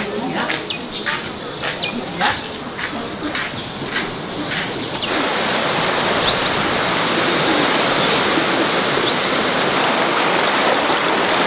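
Insects trilling steadily, with short high chirps over them. About five seconds in, this gives way abruptly to the steady rush of flowing stream water.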